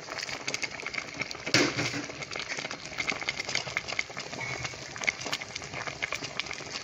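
A pot of pepper soup simmering, a steady crackle and pop of bubbles, while sliced onions are tipped in from a plate. A single louder clatter comes about a second and a half in.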